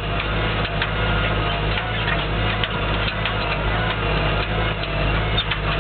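Lamborghini tractor's diesel engine running steadily under load while pulling a harrow through the field, with irregular ticking and rattling over the engine.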